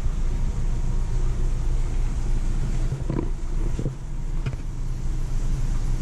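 Duramax turbo-diesel V8 of the Chevrolet Express van idling, a steady low rumble, with a few light knocks in the middle.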